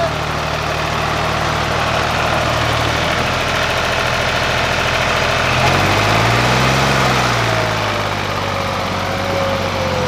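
John Deere tractor's diesel engine working under load, trying to pull a trolley loaded with a road roller out of deep sand while its rear wheels spin. The engine revs up about halfway through and drops back again.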